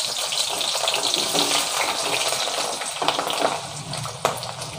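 Sliced onions just added to hot mustard oil in a kadhai, frying with a steady, dense sizzle that eases slightly, with a few sharper pops in the second half.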